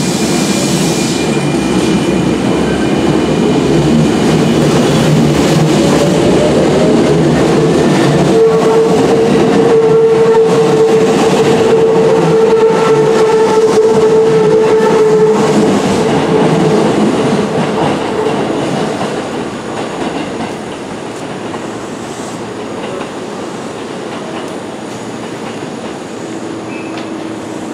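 An electric train pulls away from the platform. Its motors whine, rising in pitch as it gathers speed, and its wheels clatter over the rail joints. The sound falls off sharply about two-thirds of the way through as the train runs off.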